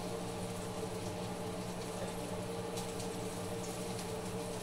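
Banana slices coated in pancake batter frying in a hot skillet: a steady sizzling hiss over a low steady hum, with a faint click about three seconds in.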